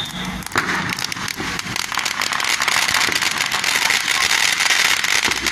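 Firecrackers and fireworks crackling in a dense, continuous rattle of rapid pops over a steady hiss of spraying sparks, growing louder about two seconds in.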